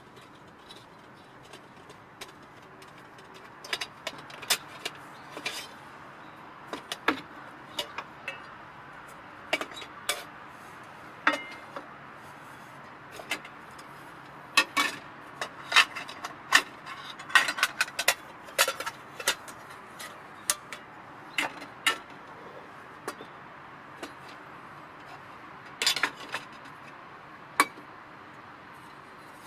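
Irregular sharp clinks and knocks of metal camp cookware being handled, some ringing briefly, in clusters with short pauses between.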